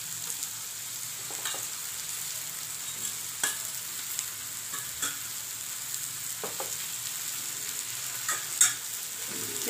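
Spiced onion, tomato and peanut masala sizzling in oil in a kadhai as mashed roasted brinjal is scraped in and stirred through with a wooden spatula, with a steady high hiss and a few sharp knocks of utensils against the plate and pan.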